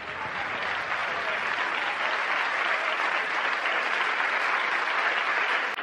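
Audience applauding, the clapping swelling up within the first second and then holding steady.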